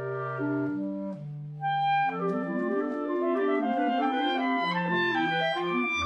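Music played on a reedy wind instrument: held notes moving in a slow melody over a low line, with more parts joining about two seconds in.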